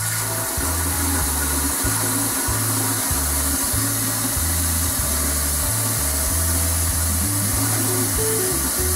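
Delta single-handle kitchen faucet running a steady stream of water into the sink, the freshly repaired faucet being run to check for leaks. Background music with a repeating bass line plays over it.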